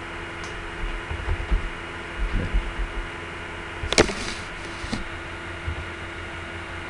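Steady electrical hum with a few low thumps. A sharp computer-mouse click comes about four seconds in and a fainter one about a second later, as diagram elements are selected.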